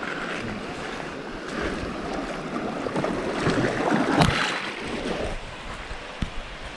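Feet wading and splashing through shallow river water. The splashing builds to its loudest about four seconds in, with one sharp splash there, then eases off.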